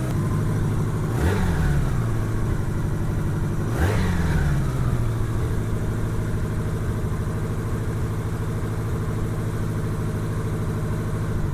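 Honda GL1200 Gold Wing's flat-four engine idling while it warms up on choke, blipped up twice in quick revs about a second and four seconds in. The engine is being checked for a popping misfire after new ignition coils went in.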